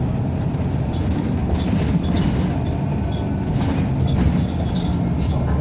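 Interior sound of a NABI 45C-LFW city bus, its compressed-natural-gas engine running, with a steady low rumble of engine and road noise inside the cabin.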